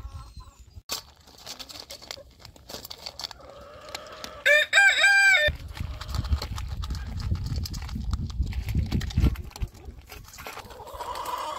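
A rooster crows once, a drawn-out call of about a second a few seconds in, from a flock of hens and roosters that are calling this morning. A low rumble follows for a few seconds.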